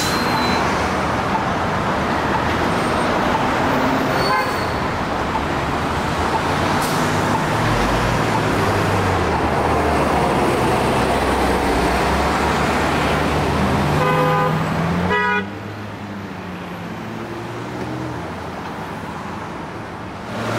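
City street traffic with a New York City transit bus driving close past, its engine and tyres loud and steady. A vehicle horn toots briefly about fourteen seconds in, then the sound drops to quieter, distant traffic.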